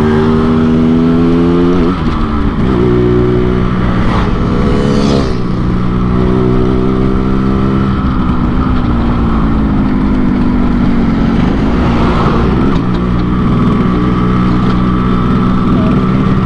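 Yamaha RX-King 135cc two-stroke single-cylinder motorcycle, tuned with the Medan-style 'ngorok' (snoring) setup, running on the road. The engine revs up over the first two seconds, drops sharply in pitch as it shifts up, then holds a fairly steady pace with small rises and dips.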